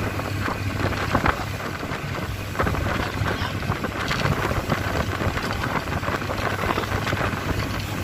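Wind buffeting the microphone over the steady low hum of a boat's engine on open water.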